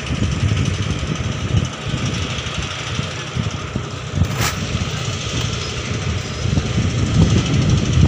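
Steady low rumbling noise with one short sharp click about four and a half seconds in.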